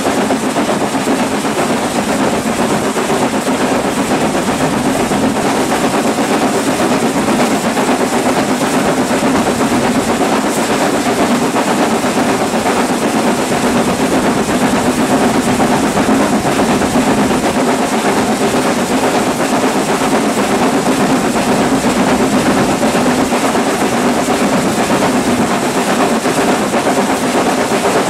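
Steam locomotive running with its train at speed, heard from close behind the engine: a loud, steady mix of the engine working and wheels on the rails.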